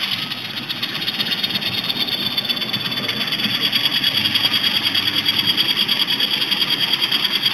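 N scale model train running steadily along the track, heard from a camera riding on the train: a small motor's hum with the rattle of wheels on rail, pulsing fast and evenly and growing a little louder after about two seconds.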